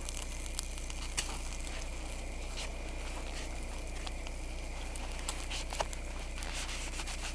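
Pork steak sizzling on a charcoal grill, with the coals crackling and a few sharp pops about a second in and again near the end.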